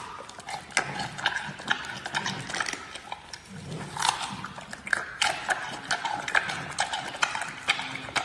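Giant panda chewing a peeled bamboo shoot, with irregular crisp crunches and cracks several times a second.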